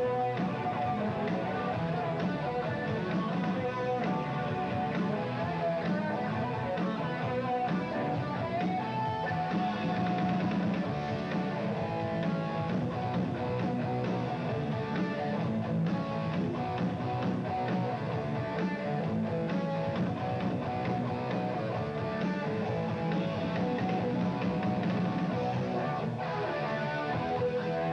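A rock band playing live: electric guitars strummed over a drum kit, steady and continuous.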